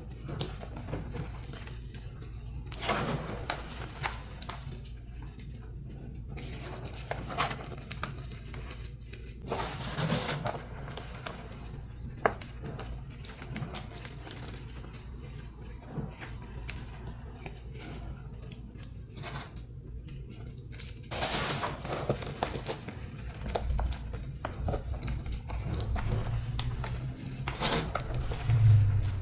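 Dyed, pasted gym chalk blocks being crushed and crumbled by hand: scattered dry crunches and crackles, with the crunching getting busier over the last third.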